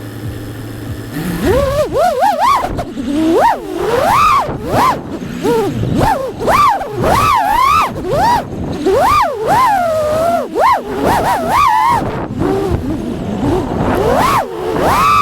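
FPV quadcopter's electric motors whining, the pitch swooping up and down every second or so as the throttle is worked during freestyle flight.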